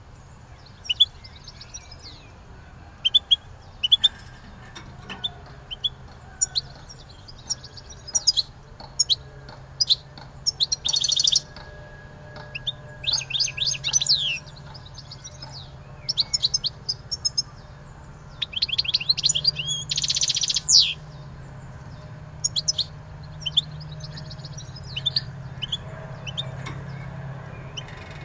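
A songbird singing: quick high chirps and twittering phrases in bursts, broken twice by a fast, dense trill, over a steady low hum.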